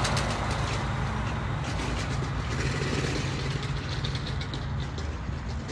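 Semi-truck diesel engine idling, a steady low rumble.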